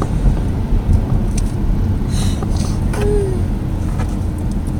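A car on the road: a steady low rumble of engine and road noise, with a few faint clicks.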